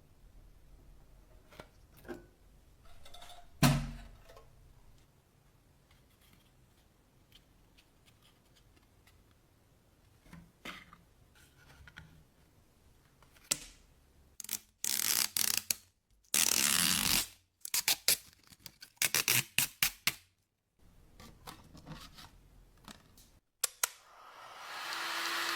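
Workshop handling noises: scattered clicks and a sharp knock, then a series of short scraping or hissing bursts, some longer and some quick in succession.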